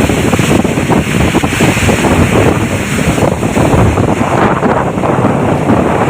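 Waterfall rushing, loud and steady, with wind buffeting the microphone.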